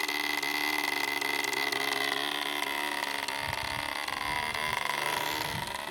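Small model airplane engine running at high speed with a steady high-pitched whine. Its pitch drops a little near the end as the model is hand-launched and flies away.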